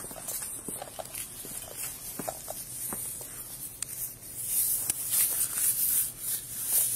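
Footsteps on pavement. About four and a half seconds in, a loud hissing rustle starts: clothing brushing across the body-worn camera's microphone as an arm reaches for a car door handle.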